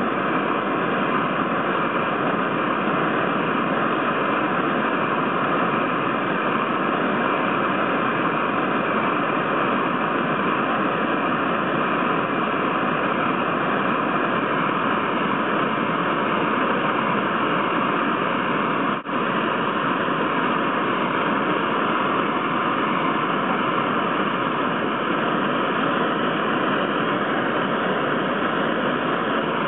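Steady, loud hiss with no tones or rhythm, cutting out for an instant about nineteen seconds in.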